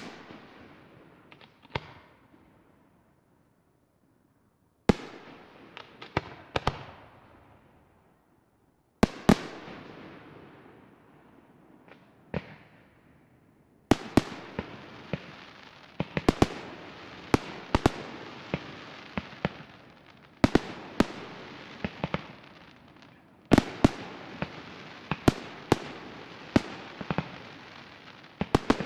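Aerial firework shells bursting: sharp bangs, each trailing off in a long echo. They come singly with quiet gaps at first, then from about halfway through they come thick and fast, one or two a second.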